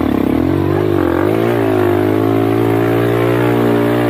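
ATV engine running under load on a dirt trail, its revs dipping and rising briefly about a second in, then holding fairly steady.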